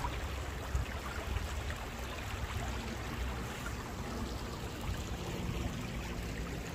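Small woodland stream running steadily over stones and fallen branches, a continuous rushing.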